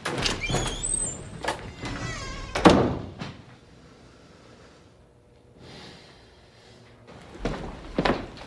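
A run of knocks and thumps in a small room, one louder thud about two and a half seconds in, then a few seconds of quiet room tone. Near the end a low hum comes in with more knocks.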